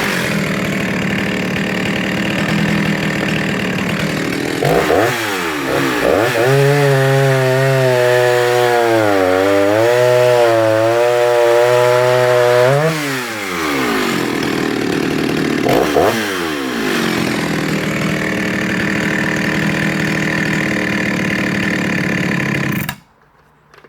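Jonsered 49SP two-stroke chainsaw revving and cutting through wood. Its engine pitch sags and wavers under load through a long cut in the middle, and it picks up again in short revs between cuts. The engine stops abruptly near the end.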